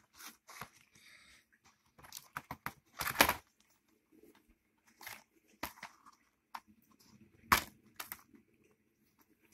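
DVD box set being handled: cardboard and plastic cases rustling, with scattered clicks and knocks, the loudest about three seconds in and again about seven and a half seconds in.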